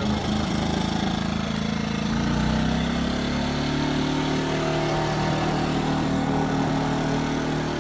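WEN 56200i inverter generator's 79.7 cc four-stroke OHV engine running just after a pull start on choke. Its pitch climbs gradually a couple of seconds in, then holds steady.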